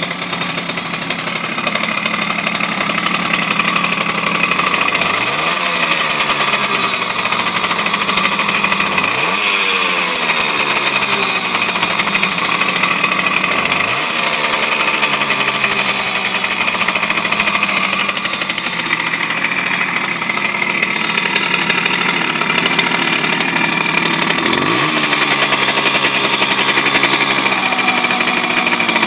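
Simson moped's two-stroke single-cylinder engine idling and blipped four times, each rev rising quickly and then falling away. As the revs drop it squeals, scrapes and vibrates, an abnormal noise whose cause is unknown.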